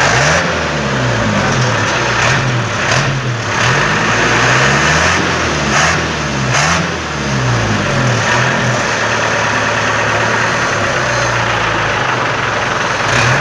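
Truck engine revved up and down repeatedly through a "wolf-sound" (suara serigala) exhaust, its pitch rising and falling about eight times, then holding a steady note for the last few seconds.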